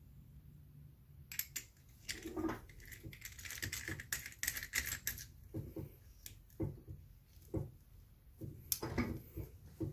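Small metal faucet-adapter parts clicking and scraping as they are handled and screwed together: a brass threaded adapter and a chrome knurled quick-connect collar. There are irregular clicks, starting about a second in.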